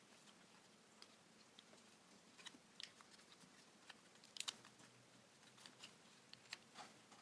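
Faint crinkles and soft clicks of a sheet of origami paper being folded and creased by hand, with a few slightly louder crackles about two and a half and four and a half seconds in.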